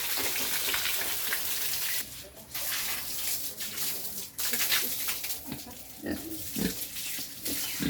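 Pigs grunting in short low calls, most of them in the second half. A steady rush of running water is heard at the start and stops after about two seconds.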